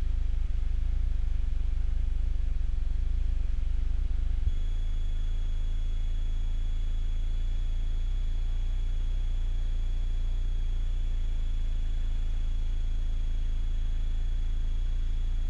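Steady low drone of a piston aircraft engine heard from inside the cockpit. About four and a half seconds in it drops slightly, and a faint, thin high whine starts and holds steady.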